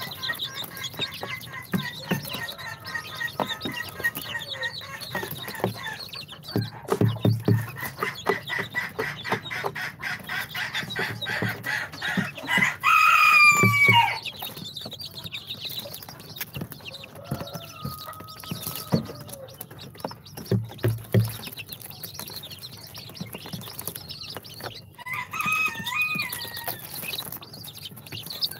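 Baby chicks peeping: rapid high cheeps, busiest in the first half, with a louder, sharply falling call about halfway through and a short wavering call near the end. A few low thumps are mixed in.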